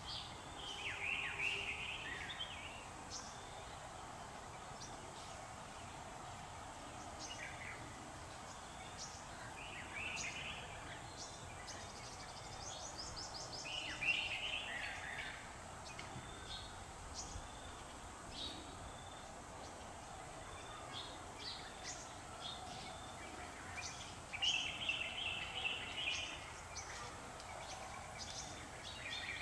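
Outdoor ambience: a steady background hum with small birds chirping in short bursts every few seconds, the loudest about a second in, around the middle and near the end, along with scattered faint high ticks.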